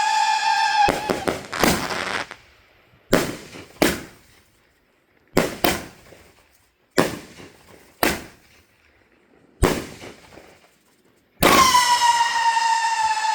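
A fireworks cake (Bright Star 'Wolf Warrior', 18 shots, 500 g) firing. A whistling tail ends about a second in. It is followed by about ten sharp bangs of shots and breaks, some in quick pairs. Near the end a new whistling tail starts, its pitch falling quickly and then holding.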